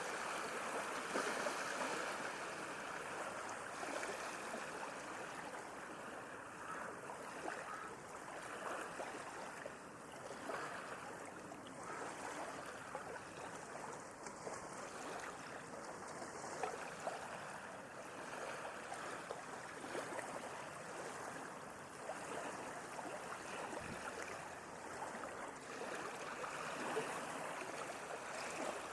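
Gentle sea waves lapping and splashing in a steady, continuous wash of water, with only slight rises and falls and no big breaking swell.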